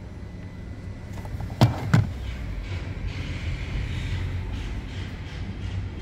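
Citroen Dispatch 2.0 diesel engine being turned over on the starter without firing. Two sharp clicks come about a second and a half in, then a steady whirr for a few seconds. The mechanic takes the no-start to be a snapped timing belt: no RPM or cam/crank synchronisation while cranking.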